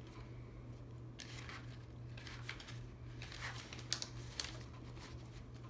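Soft paper rustling and small handling noises as the pages of a picture book are turned, with a couple of light clicks about four seconds in, over a steady low hum.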